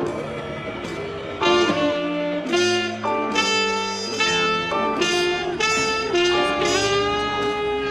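Background music: jazzy instrumental with a saxophone-like horn playing sustained notes over guitar.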